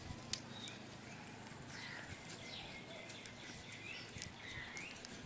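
Faint bird chirps, short and scattered, over low background noise, with a few light clicks.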